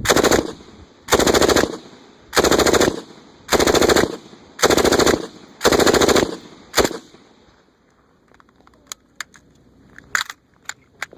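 M249 SAW, a 5.56 mm belt-fed light machine gun, firing six short bursts about a second apart, then a brief last burst about seven seconds in. A few faint metallic clicks follow.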